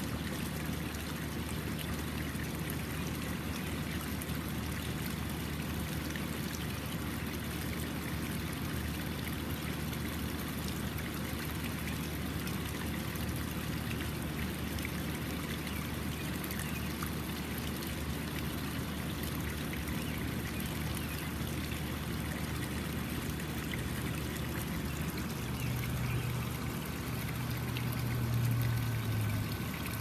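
Small pump-fed garden waterfall: a thin sheet of water pouring off a pond-liner lip and splashing steadily into the pond below. A low hum swells and fades near the end.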